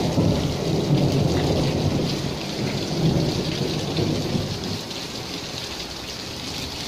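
Thunder rumbling over a steady downpour of rain. The deep rumble rolls for about five seconds and fades away, while the rain keeps hissing.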